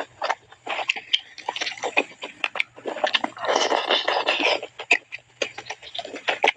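Close-up chewing and biting of grilled chicken: a run of short wet clicks, smacks and crunches, thickest and loudest a little past halfway. A faint low hum sits underneath.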